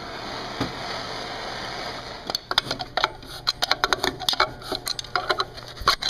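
Kenmore garbage disposal running with a steady hum. From about two seconds in comes a fast, irregular clatter of metal parts knocking inside it: the overheated, smoking unit is breaking up.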